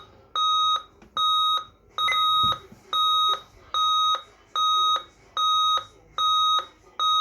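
ST6100 alarm panel keypad sounder beeping repeatedly: a steady high electronic tone of about half a second, roughly one beep every 0.8 seconds.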